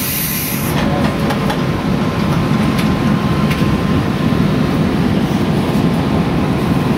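Steady low hum and rumble inside a passenger train carriage that is standing still. A brief high hiss dies away about half a second in.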